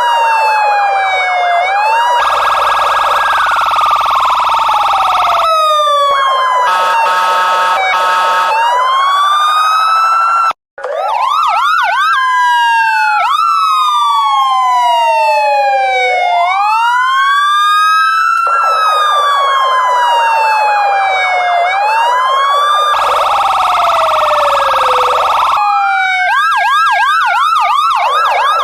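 Electronic police car sirens, several overlapping, cycling between slow rising-and-falling wails and fast yelps, with a short stretch of steady tones about six to eight seconds in. The sound cuts out for a split second about ten and a half seconds in, then the sirens resume.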